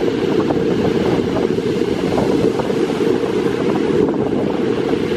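Wind buffeting the microphone steadily, over the wash of sea waves on the beach.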